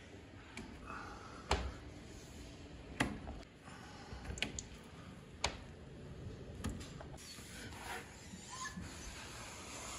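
A handful of short, sharp light knocks and clicks, roughly a second or so apart, over a faint steady hiss.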